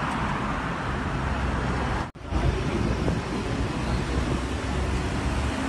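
Road traffic noise from passing cars, mixed with low wind rumble on the microphone. The sound drops out for a moment about two seconds in, then the steady noise goes on.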